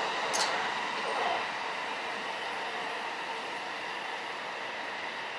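JR East electric commuter train running along the platform track, its rumble gradually fading, with a brief high hiss about half a second in.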